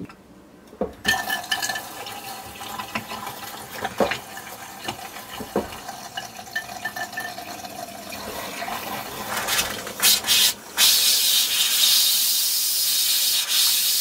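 Water running from a kitchen sink faucet, with irregular sputters, as air is let out of the water heater and lines of a freshly de-winterized water system. Near the end the flow turns into a loud, steady hissing rush.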